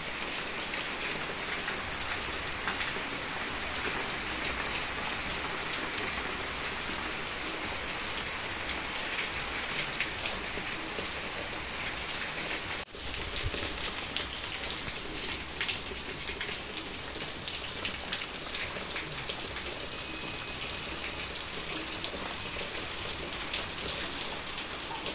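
Steady rain falling, an even hiss full of individual drops striking, with a brief dropout about halfway through.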